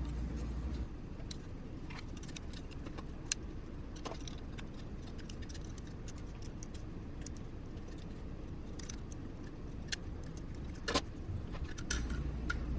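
Scattered small clicks and clinks of metal hardware over a faint steady background: an M5 screw, washer and nylon lock nut being handled and fitted through a 3D-printed plastic tripod leg. The clicks are a few seconds apart.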